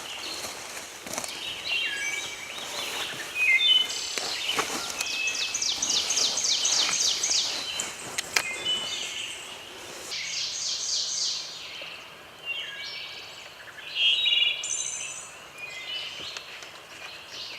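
Small songbirds singing and calling: repeated short chirps, with a fast trilled song that runs for a few seconds twice, once near the start and again about halfway through.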